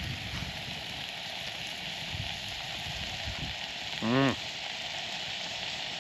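Steady sizzling hiss of a campfire with yak steak cooking over it. About four seconds in, a voice gives one short hummed "mm".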